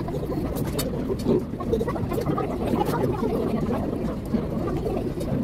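Busy restaurant background: a steady murmur of indistinct diners' voices and room noise, with a few light clicks about a second in.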